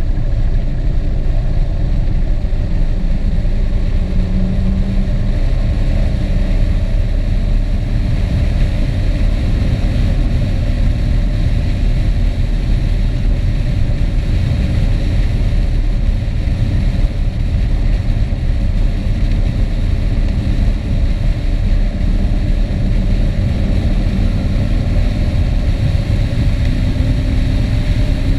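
A vehicle travelling along a road: its engine runs steadily under heavy wind rumble on the microphone, and the engine note rises slightly near the end.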